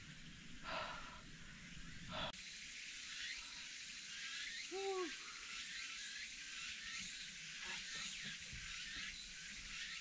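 A hiker panting: two short, hard breaths in the first couple of seconds of a steep mountain climb. A steady high hiss from the surroundings follows, with one short call about halfway through that rises and falls in pitch.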